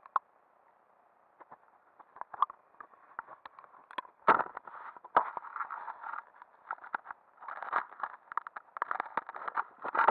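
Muffled underwater clicks, knocks and crackling scrapes of a camera being moved close over the stony stream bed: a few scattered ticks at first, then dense bursts from about four seconds in.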